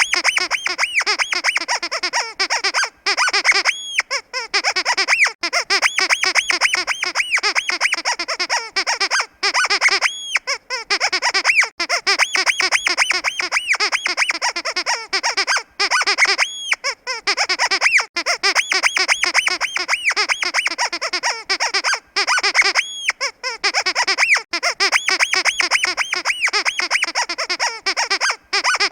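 Squeaky pig dog toy squeezed rapidly over and over: short squeaks several times a second, with a longer drawn-out squeak about every six seconds.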